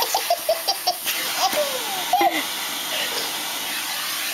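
Baby laughing in a quick run of short laughs, then two longer falling ones, over the steady noise of a running vacuum cleaner; the laughter stops a little past halfway, leaving the vacuum running alone.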